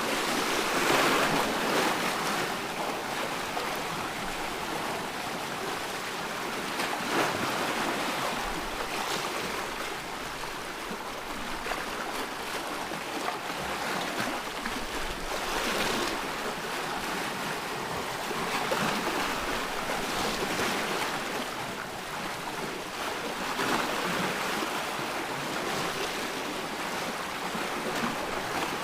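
Ocean waves washing onto a shore: a steady rushing noise that swells and eases every few seconds as waves break and draw back.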